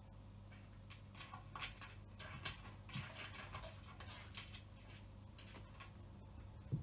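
Cat's claws scratching and scraping at the bottom edge of a sink cabinet door, a run of short scratchy strokes in the middle, over a faint steady low hum.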